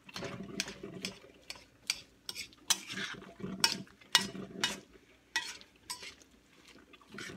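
A utensil beating a chunky imitation-crab-cake mixture in a bowl, clicking against the bowl about twice a second.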